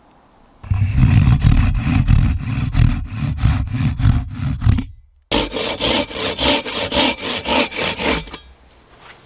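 Hand saw cutting through wood with quick, even back-and-forth strokes, in two runs with a short break in the middle.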